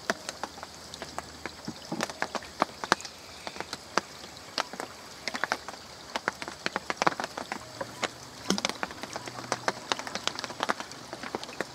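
Rain falling: many irregular sharp drops tapping on a surface close by, over a steady background hiss.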